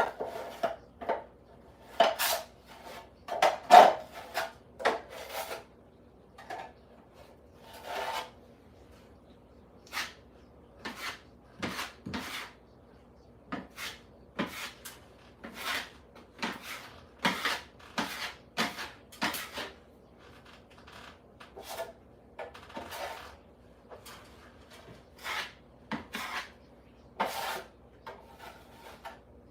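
Repeated short scraping strokes of a hand tool worked against a surface, coming irregularly about once a second, loudest in the first few seconds.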